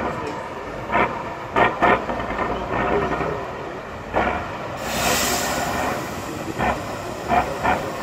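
Competition trial truck's diesel engine running under load as the truck crawls through rough ground, with several short sharp sounds in the first two seconds and a loud hiss about five seconds in.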